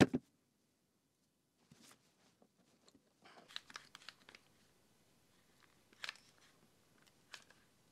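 A one-handed quick-release bar clamp being worked shut on a freshly glued dowel and wooden handle: light clicks and knocks of the trigger and plastic jaws, with a short run of ratcheting clicks about three to four seconds in. A sharp click at the very start is the loudest sound.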